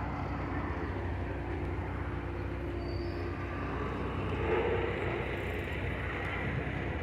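Steady rumble of a horse-drawn carriage rolling through city streets, with traffic noise around it and a slight swell about four and a half seconds in.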